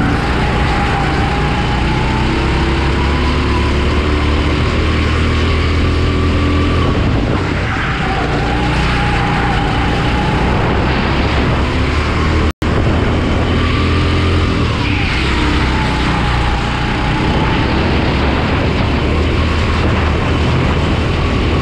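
Honda GX270 single-cylinder four-stroke kart engine running at racing speed, its pitch rising as it accelerates and falling as it slows for corners, over and over. The sound cuts out completely for an instant a little past halfway.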